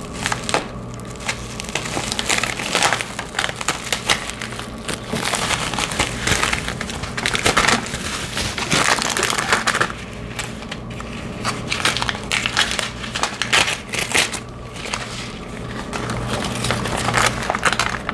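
Plastic bubble-wrap packaging and tissue paper crinkling and rustling as hands unpack a parcel, a dense run of crackles with louder bursts every second or two.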